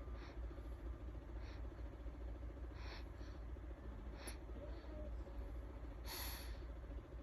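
A run of short, breathy gasping noises, about six, coming irregularly every second or so, with the longest and loudest about six seconds in, over a faint steady low hum.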